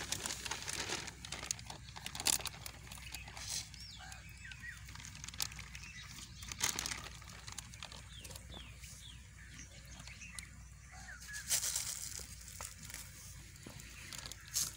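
Plastic fish-transport bag crinkling and rustling in the hands as it is handled and opened at the water's edge to let the fish out, in short irregular crackles with a few louder rustles.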